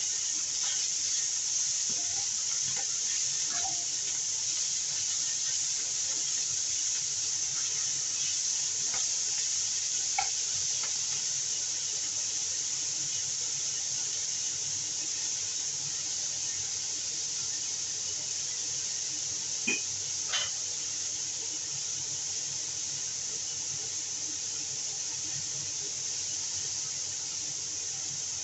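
Leafy greens sizzling steadily in a stainless steel wok over a gas flame, a high, even hiss, with a few faint clicks now and then.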